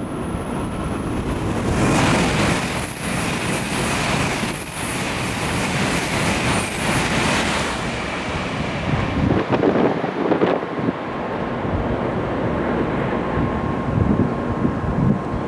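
Tokaido Shinkansen bullet train moving through the station, a loud steady rushing rumble that eases a little about eight seconds in.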